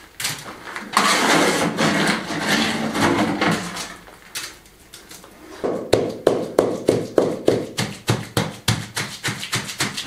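Stones and rubble clattering as they are tossed about. From about six seconds in, a fast, even run of sharp wooden knocks, about five a second, as the fresh limecrete floor is tamped down.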